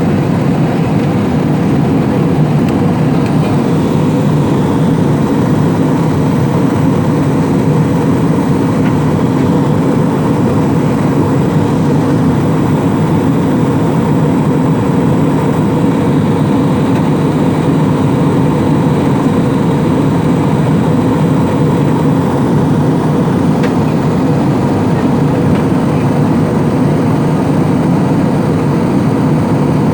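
Steady cabin noise of an airliner in flight: a loud, unchanging rumble of engines and rushing air.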